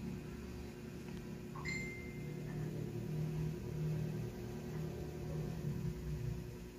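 Steady low hum, with a short high tone that rises and then holds briefly about two seconds in.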